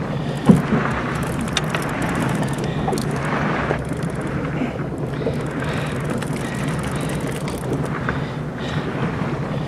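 Fishing boat's engine running steadily under way, with wind and water noise over it; a single sharp knock about half a second in.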